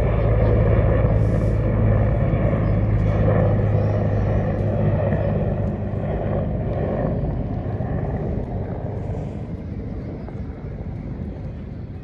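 Helicopter flying past, a steady low drone that fades gradually as it moves away.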